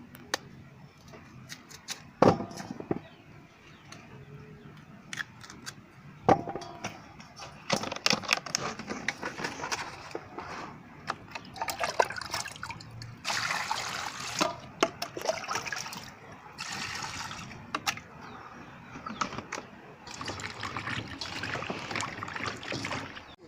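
Water splashing and trickling in bursts, with scattered sharp knocks and clicks.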